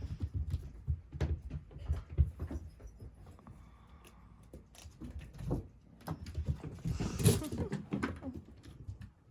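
A mother cat and her kittens scuffling as they play: a quick, irregular run of soft thumps and scratchy pats from paws and bodies. A louder flurry comes about seven seconds in.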